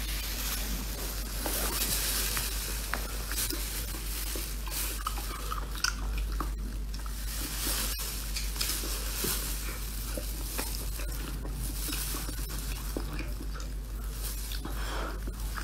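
Close-up eating sounds of a whole boiled octopus being bitten and chewed: many small wet clicks and smacks over a steady hiss and low hum.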